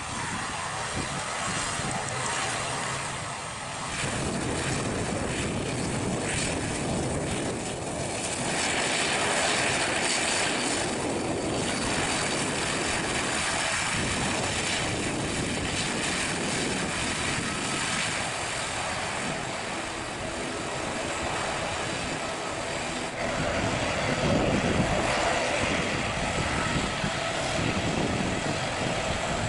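ATR 72-600 turboprop airliner's twin Pratt & Whitney PW127 engines and six-bladed propellers running on the ground as it rolls and taxis: a steady propeller drone with a high engine whine over it, swelling in loudness a few times.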